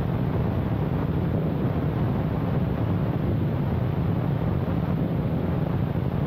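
A firework ground fountain spraying sparks close to the microphone: a steady rushing roar, heaviest in the low end, with no separate bangs.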